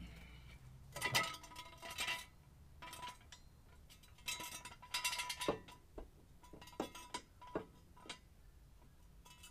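Metal clinking and rattling in short bursts, several times over, as a steel jack stand is set in place under the car's rear.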